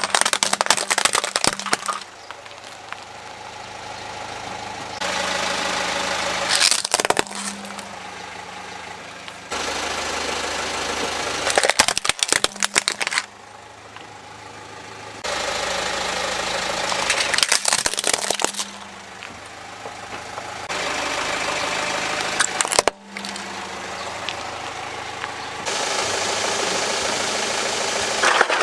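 A car tyre rolling over plastic toy vehicles and crushing them, with loud cracking and crunching of breaking plastic, repeated several times over the steady running of the car's engine.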